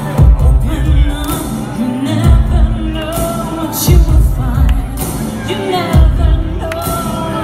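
A woman singing a pop ballad live over an amplified backing track, with deep, heavy beats about every two seconds.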